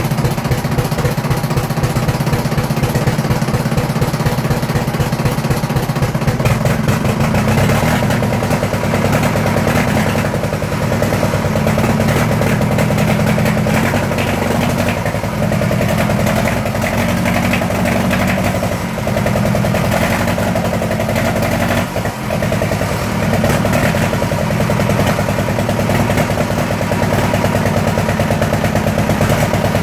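Fordson Super Major backhoe loader's four-cylinder diesel engine running on its first start, a loud rapid clatter. The engine speed shifts a few times and dips briefly about twenty-two seconds in.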